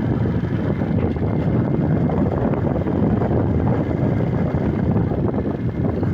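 Vehicle engine running with no exhaust fitted, a loud, steady, rough unmuffled noise.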